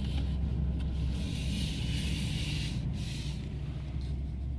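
Vehicle engine running steadily, a low even hum.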